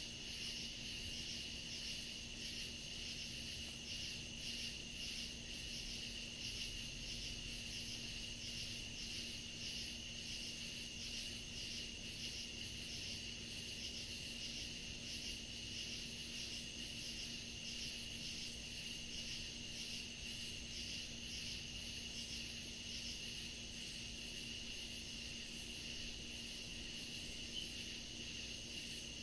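Night chorus of crickets and other insects in woodland: a continuous high trill with rhythmic pulsed chirping over it, a few pulses a second, steady throughout.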